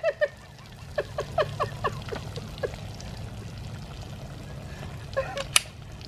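Drink spilling from bullet-punctured bottles inside the refrigerators: a quick run of glugs, then a steady trickle and pour. A single sharp click comes near the end.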